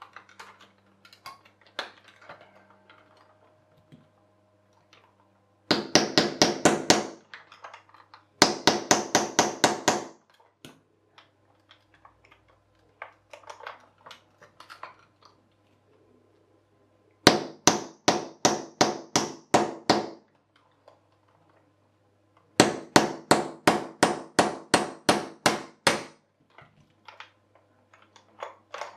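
Four runs of quick, sharp taps, about six a second and each lasting one to three seconds, as the wheels of a plastic toy train are tapped onto their axles, with small handling clicks between the runs.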